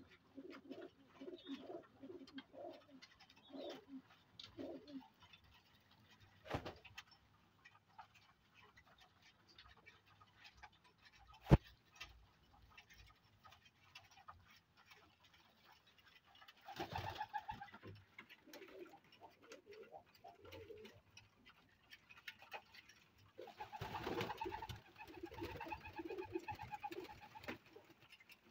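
Pakistani flying pigeons cooing in a loft: low, repeated coos in the first few seconds, and again with busier, louder stretches in the latter half. One very sharp click about two-fifths of the way through is the loudest sound.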